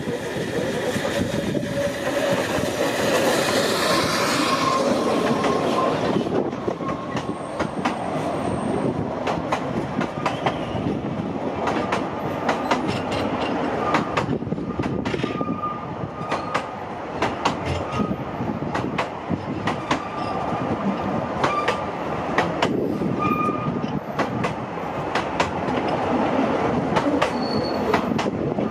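Narrow-gauge Garratt steam locomotive NG G16 No. 87 working past with its steam exhaust for the first few seconds, then its coaches rolling by with a steady run of wheel clicks over the rail joints. Brief high squeals from the wheel flanges come and go as the coaches take the curve.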